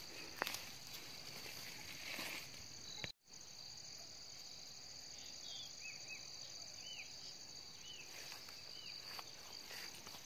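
Steady high-pitched chorus of insects, with a brief rustle about half a second in and a few short high chirps in the second half; the sound cuts out for a moment about three seconds in.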